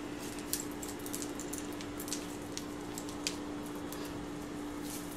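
Raw 80% lean ground beef being patted and pressed between the hands into a patty: soft, irregular squishy pats and light ticks, with a steady low hum underneath.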